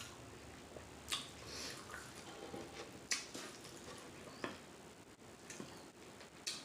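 Close-miked mouth sounds of a person chewing food with the lips smacking: a few sharp wet clicks spaced a second or two apart over soft chewing.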